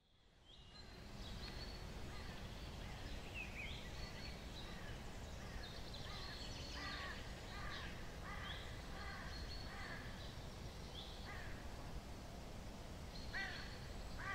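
Countryside ambience of birds calling again and again over a low steady rumble, fading in over the first second.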